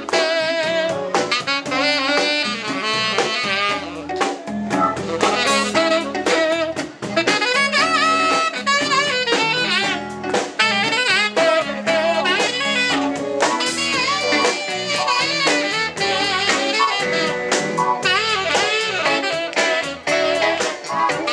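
Live band music: a saxophone plays a solo of bending, sliding phrases over electric bass, guitar and drum kit.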